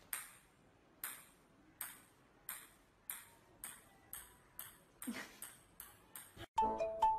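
A table tennis ball bouncing on a hard tiled floor: about a dozen sharp clicks that come ever closer together as the ball settles.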